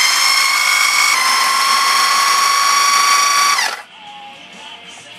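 Food processor motor running at speed with a steady high whine as it mixes a dry breadcrumb blend; the pitch shifts slightly about a second in, then the motor winds down and stops a little before four seconds in.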